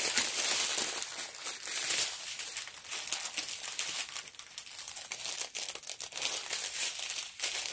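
Plastic packaging of a diamond painting kit crinkling as it is handled, with small bags of resin drills among it: a dense crackle of fine ticks, loudest in the first couple of seconds and softer after.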